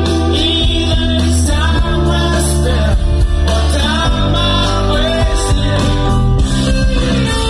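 Live rock band playing: a male lead vocal sung over electric guitar and bass, as heard from the audience.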